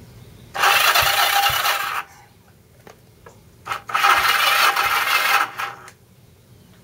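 Electric starter cranking a 1974 Kawasaki KZ400's parallel-twin engine for a compression test, in two bursts of about a second and a half each, stopping abruptly. The compression reads low, about 50 psi where about 100 is expected, which the owner puts down to a head gasket leaking between the cylinders.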